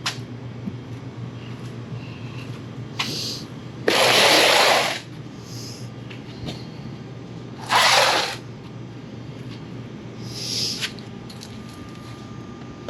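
Sandpaper scrubbed over the Ninja H2's scuffed bodywork in separate strokes: a faint one about three seconds in, two loud ones of about a second each, and a softer one near the end. A steady low hum runs underneath.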